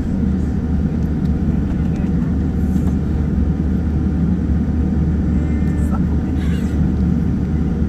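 Steady low rumble heard inside the cabin of a Boeing 787-9 Dreamliner as it taxis, its engines at low taxi thrust.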